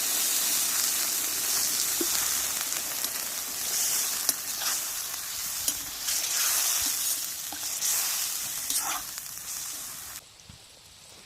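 Zirvak of lamb, onion and carrot sizzling in hot fat and water in a cast-iron kazan: a steady hiss with scattered pops, cutting off abruptly about ten seconds in.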